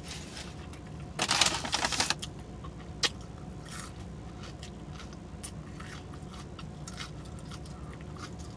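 Close-miked chewing and mouth smacking on a breakfast burrito: a loud, noisy crunching burst lasting about a second starts about a second in, followed by scattered small wet clicks and smacks.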